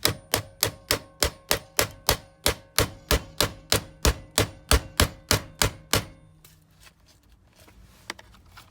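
Hammer tapping on a loosened steering-wheel bolt on a Subaru Forester's steering shaft to knock the wheel free of its splines without a puller. There are about twenty quick metallic hits, some three a second, each with a short ring, and they stop about six seconds in.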